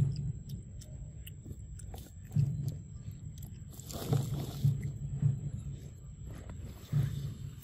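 A monkey biting and chewing kernels from a corn cob, in several separate bouts with small clicks.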